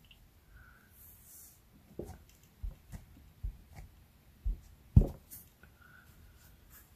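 Light taps and knocks of a clear acrylic stamp block being inked on an ink pad and handled on the craft desk: a few soft taps, then a sharper knock about five seconds in.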